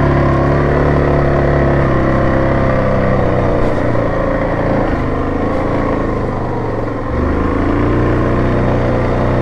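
Yamaha Grizzly 700 ATV's single-cylinder engine running steadily while riding a dirt trail. The engine eases off about three seconds in and picks up again about seven seconds in.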